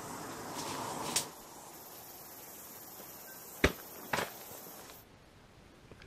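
Footsteps crunching on a gravel track, stopping after about a second with a sharp click, then two sharp knocks about half a second apart.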